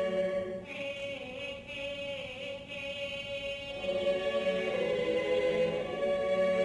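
Choir singing a folk song in sustained held chords. High voices with vibrato come in about a second in, and the choir swells louder about four seconds in.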